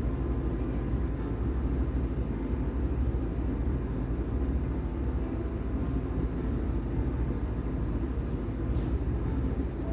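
Wooden spatula stirring thick, wet semolina kesari and sugar in a nonstick pan, over a steady low rumble.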